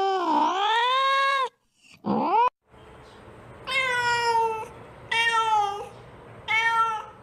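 Kitten meowing to call its mother: a long drawn-out meow whose pitch dips and rises and then cuts off, a short rising mew, then three shorter meows about a second and a half apart.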